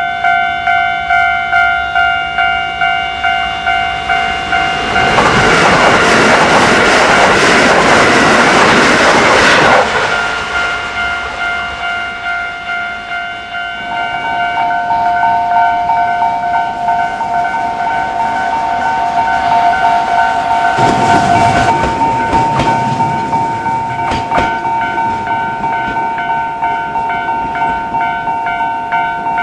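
Japanese level-crossing warning bell ringing steadily, a two-tone ding repeating about twice a second. A train passes loudly for about five seconds. Partway through, a crossing bell with a higher, different pair of notes takes over, and a second train passes about 21 seconds in.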